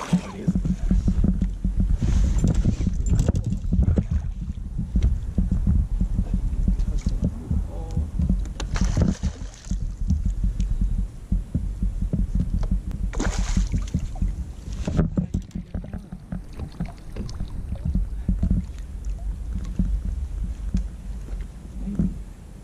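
Fishing kayak on the water: a steady, uneven low rumble with a few brief swishes and splashes, about two, nine and thirteen seconds in.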